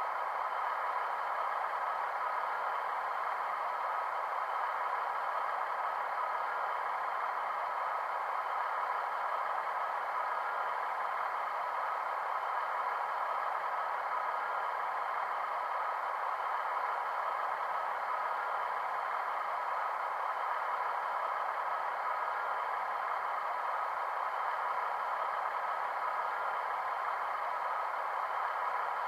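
Steady idling diesel engine sound of a Class 156 model from its DCC sound decoder, played through the model's small onboard speaker: an even, unchanging hum with no deep bass.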